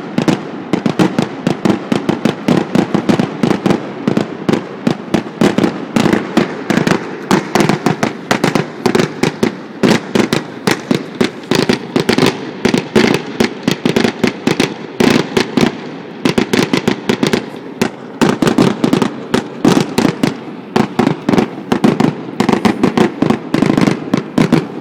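Fireworks finale: a rapid barrage of aerial shell bursts, several sharp bangs a second, that stops near the end.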